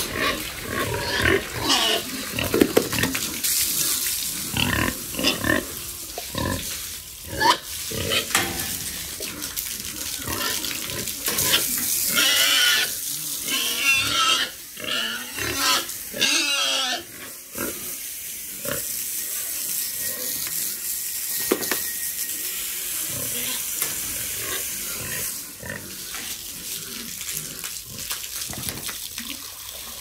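Pigs grunting and squealing around a running water hose, with a run of wavering high squeals about midway. For the second half the hose spray hisses steadily over the pig's back.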